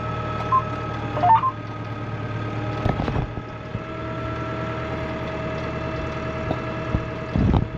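Massey Ferguson 5445 tractor engine running steadily under a planting load, with a few short electronic beeps from the cab equipment in the first second and a half and a couple of brief knocks later on.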